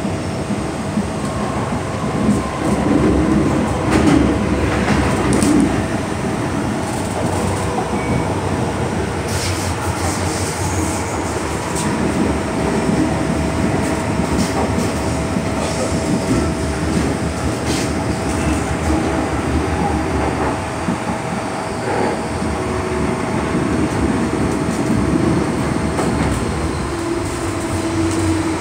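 Cabin noise of an MTR M-Train metro car running on the line: a steady rumble of wheels on rail with a constant tone held throughout and a few sharp clicks.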